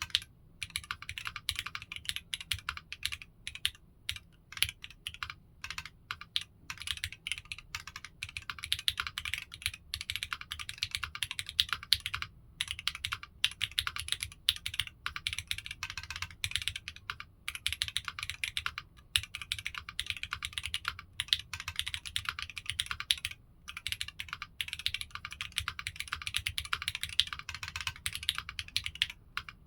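Continuous typing on a foamless mechanical keyboard with Strawberry Jelly v2 switches on an aluminium plate: a quick, irregular stream of key clicks with short pauses between bursts.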